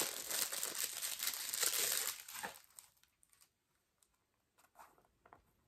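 Packaging crinkling and rustling as a water-activated cake liner is unwrapped by hand, for about two and a half seconds, then a few faint clicks and taps.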